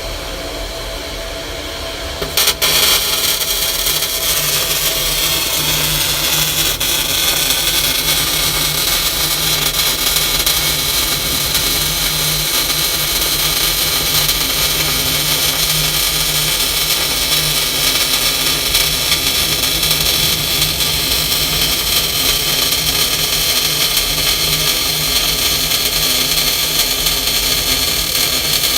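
MIG welding arc striking about two and a half seconds in and running steadily as a small practice bead is laid.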